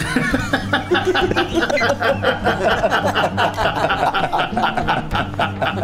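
People laughing, a long run of quick, overlapping chuckles.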